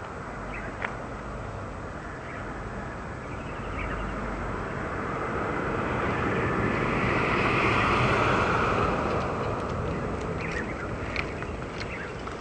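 A gust of breeze rushes through foliage, swelling for several seconds and then fading away. A few short bird chirps come near the start and near the end.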